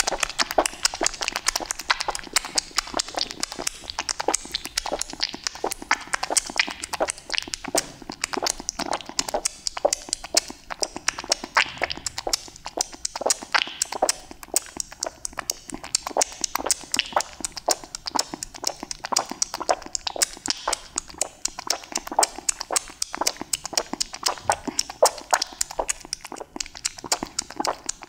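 Cat eating raw tuna from a small glass dish, heard close up: a steady run of wet chewing and lapping smacks, several a second.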